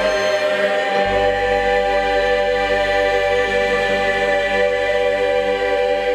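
Church choir singing with a violin ensemble, holding long sustained chords.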